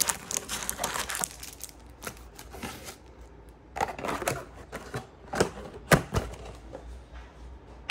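Plastic wrapping on a trading-card box crinkling and tearing as it is opened by hand, mixed with irregular clicks and sharp knocks of cardboard being handled. The loudest knock comes about six seconds in.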